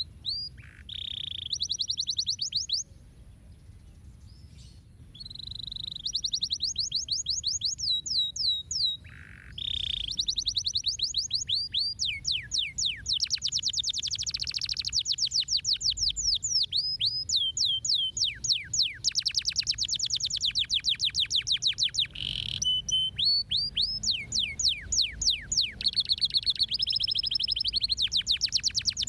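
Domestic canary singing long, fast trills of repeated down-sweeping notes, phrase after phrase, with a short lull about three to five seconds in.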